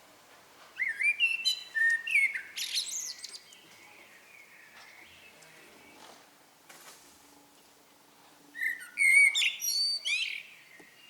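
Eurasian blackbird singing two song phrases several seconds apart, each a low fluty warble that ends in a high, squeaky twitter.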